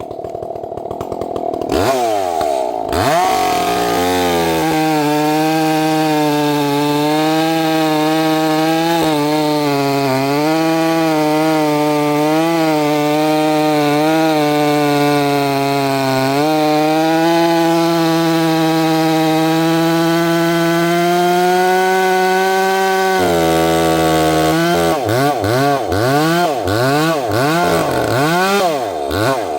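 Two-stroke gas chainsaw cutting oak. It revs up about two seconds in and holds full throttle through a long cut, its pitch wavering under load. Just past the middle it drops off, then gives a run of quick throttle blips before falling back near the end.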